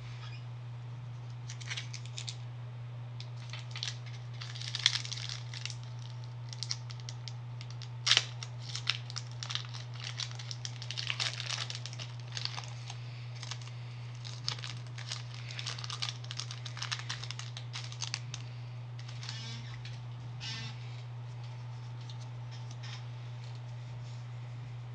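Foil wrapper of a Pokémon trading card booster pack being torn open and crinkled, a run of sharp crackles that thins out and stops about three-quarters of the way through. A steady low hum runs underneath.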